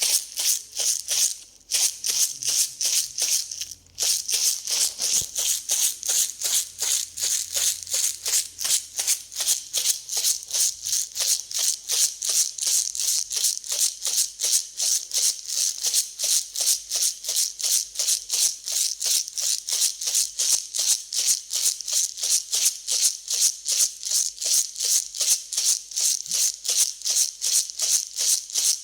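Dry grain being mixed, rattling and rustling in a steady rhythm of about three strokes a second, with two short breaks in the first four seconds.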